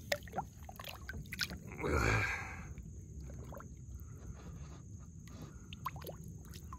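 Lake water splashing and gurgling as a released spotted bass kicks free of a hand at the surface, with one louder splash about two seconds in and scattered small drips and laps around it.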